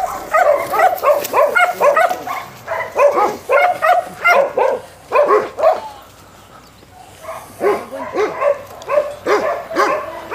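Dogs barking and yelping in quick, repeated calls, pausing briefly just past the middle before starting again.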